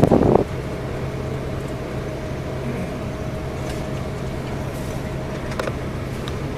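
Steady drone of a coach bus cruising on the highway, heard from inside the cabin: engine hum and road noise with a constant low tone. A brief loud rustle at the start cuts off about half a second in.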